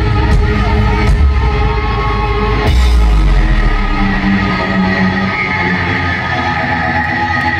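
Live heavy rock band playing in a large arena, recorded from the crowd. The heavy bass and drums fade away about three seconds in, leaving held higher notes.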